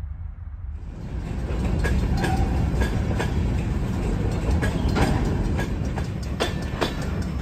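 Empty covered hopper cars of a freight train rolling past. From about a second in, a steady rumble of wheels on rail, with irregular clacks as the wheels cross joints and a few short wheel squeals.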